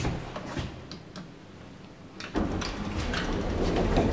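Click of a car button being pressed in a 1984 Schindler elevator. About two seconds later the door operator starts with a steady low hum, and the car doors begin sliding shut with light clicks and rattles.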